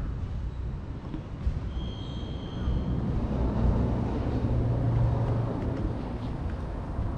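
Low rumble of a motor vehicle's engine going past, swelling about three seconds in and fading again near the end.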